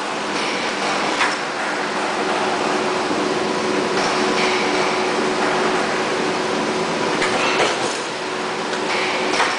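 Large chain link fence weaving machine running: a steady mechanical clatter with a continuous hum, and a few sharp clicks, one about a second in and a cluster near the end.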